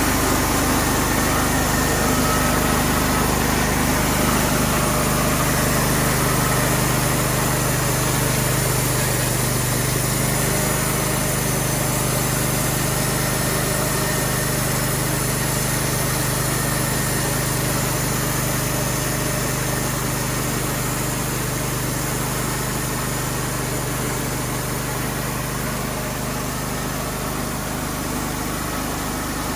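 Small engine running steadily at a constant speed, with no strokes or cuts standing out; it eases slightly quieter toward the end.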